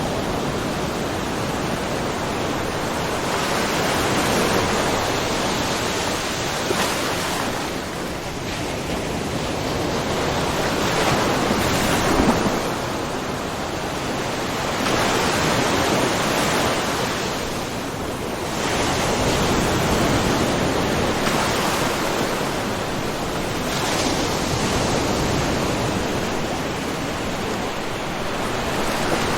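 Small ocean waves lapping and splashing on a shoreline, a continuous wash that swells and recedes every four to six seconds.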